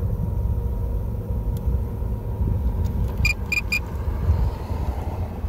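A steady low rumble, with three quick high electronic beeps a little past the middle.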